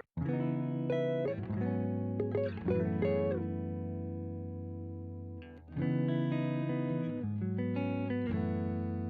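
Background music: electric guitar chords struck and left ringing, with a new chord coming in about six seconds in.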